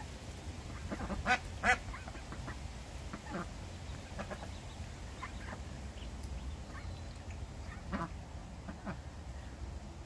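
Domestic ducks giving scattered short quacks and calls, with two louder quacks about a second and a half in, over a steady low rumble.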